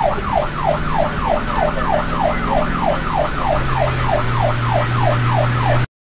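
Ambulance siren in its fast yelp mode, a rapid rising-and-falling wail repeating about four times a second, over a low vehicle hum that drops in pitch about halfway through. It cuts off suddenly near the end.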